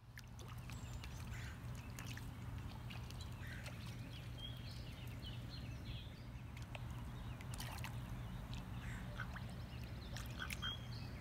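Hen mallard's faint, short calls and bill clicks while dabbling at the water's surface, scattered through a steady low rumble of outdoor background noise.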